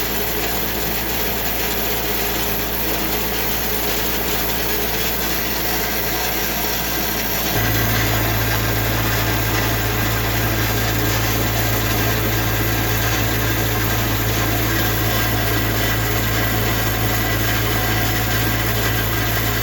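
TimberKing 6000 sawmill's diesel engine running steadily at light throttle, with the band blade engaged and spinning. About seven or eight seconds in, the sound steps up slightly and a steady low hum joins in.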